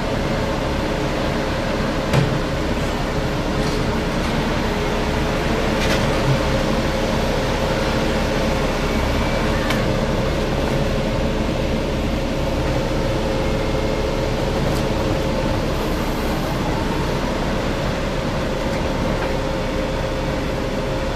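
A diesel engine running steadily, with a few short knocks and clanks over it.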